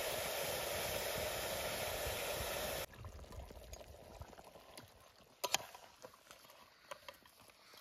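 Onions, meat and spices sizzling in an aluminium pressure cooker over a wood fire: a steady hiss that stops abruptly about three seconds in. After it, faint crackling from the fire and a single sharp tap about five and a half seconds in.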